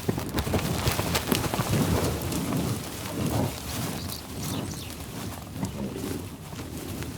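Buffalo growling low, over a busy clatter of small knocks and clicks.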